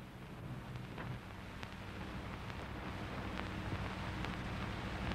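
Worn analog soundtrack noise: a low hum with hiss and scattered faint clicks, slowly growing louder.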